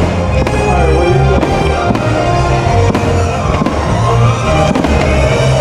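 Loud music for a nighttime fireworks show, with deep bass and a steady beat.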